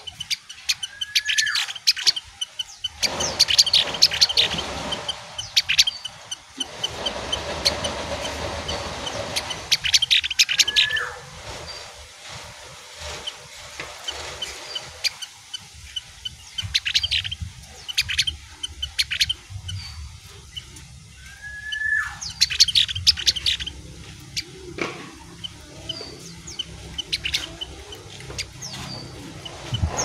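Caged opior (ovior) songbird singing in repeated short bursts of rapid high chirps and trills. A rising whistled note leads into several of the bursts.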